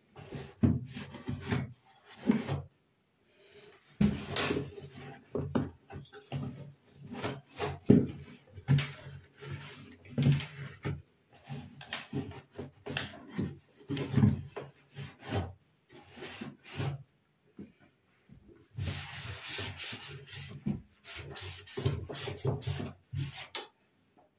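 Hand scrubbing: a run of quick, irregular rubbing strokes with short pauses in between.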